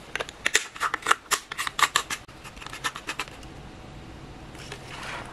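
Plastic lampholder shell being screwed onto its base: a rapid run of small plastic clicks and scrapes from the threads lasting about three seconds.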